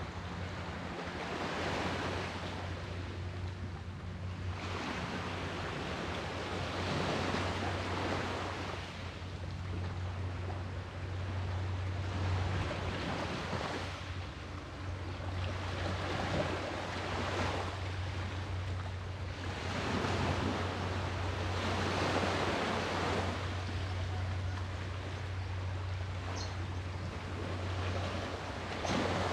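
Ocean surf: waves washing in and out, the noise swelling and falling back every few seconds, over a steady low hum.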